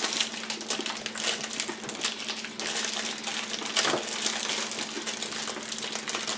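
Crinkling and clicking of clear plastic wrappers and hard peanut brittle bars being handled and broken apart at the table, a dense run of small crackles. A steady low hum runs underneath.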